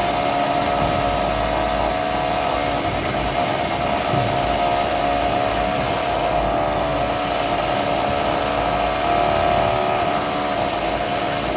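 Heavy construction machine running steadily: continuous engine noise with a steady whine.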